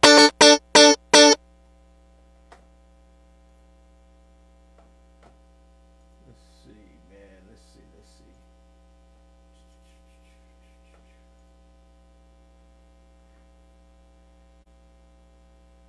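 About five quick, loud chord stabs of a sampled keyboard sound triggered on an Akai MV8800 sampling workstation in the first second and a half, then a steady electrical mains hum.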